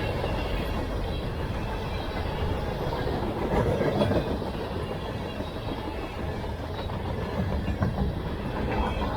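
Freight cars of a CSX mixed freight train (hoppers, centerbeam flatcars, tank cars) rolling past at track side: a steady rumble of steel wheels on rail with an uneven clickety-clack.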